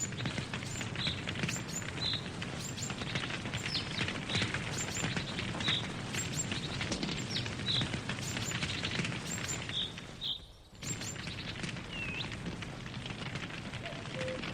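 Campfire crackling with a dense patter of small pops, while a bird gives short chirps every second or so. The sound briefly drops out about ten seconds in.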